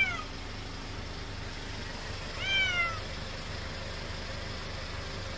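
Frail old feral cat meowing: the end of one call right at the start, then a single high call about two and a half seconds in that rises briefly and slides down. It is crying for more churu after finishing the first tube. A steady low hum runs underneath.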